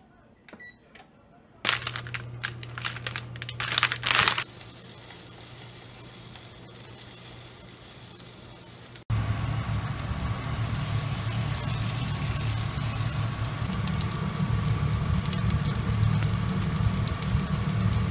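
Gyoza frying in a nonstick frying pan. Loud spitting crackle comes for a couple of seconds early on over a low steady hum, then a quieter stretch, then a loud, even sizzle through the second half.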